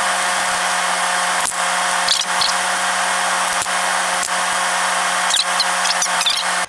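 A loud, steady mechanical whir with a low hum, like a running power tool or shop machine, that cuts off suddenly near the end. A few light metallic clinks sound over it as the connecting-rod caps and nuts of the BMW M20 six-cylinder are worked loose by hand.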